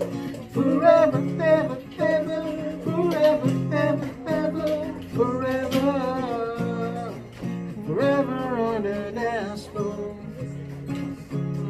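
Acoustic guitar strummed as accompaniment to a man singing in several long, wavering phrases.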